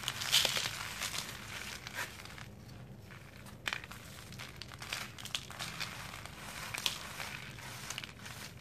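Dried sand-and-cement chunks being crushed and crumbled between the fingers and palms: a gritty crunching with scattered sharp crackles, loudest just after the start.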